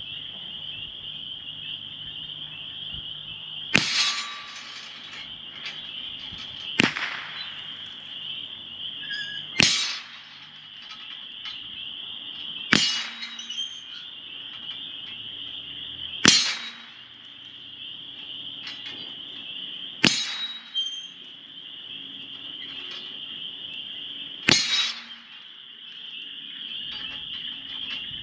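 .22 LR firearm firing seven single shots, spaced three to four seconds apart, at a steel swinger target. A steady high-pitched hum runs under the shots.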